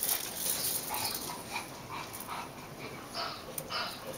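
Bulldog puppies making a string of short, high-pitched whines and yips while they tug at a toy together.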